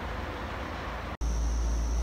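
Noise of a passing train with a low rumble, cut off suddenly about a second in. A steady low rumble with a thin, steady high-pitched whine follows.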